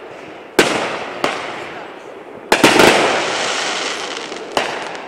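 Aerial fireworks bursting in the sky. A sharp bang comes under a second in and a smaller one about a second later. A quick run of several bangs about two and a half seconds in trails off into a long hiss, and another bang follows near the end.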